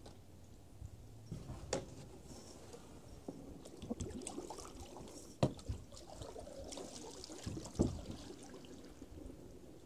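Water trickling and splashing around a canoe on floodwater, with a few sharp knocks on the canoe, the loudest about five and a half and eight seconds in.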